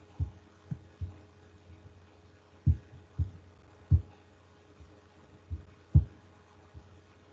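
A string of about ten dull, low thumps at uneven spacing and of varying strength, the strongest about six seconds in, over a faint steady hum.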